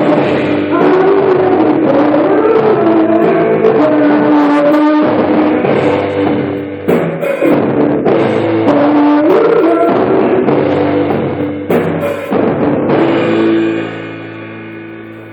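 Live rock band playing with drums and singing, ending on a held chord that dies away near the end.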